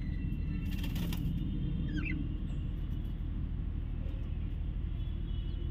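Steady low rumble of background noise, with a brief clatter about a second in and a short high squeak about two seconds in.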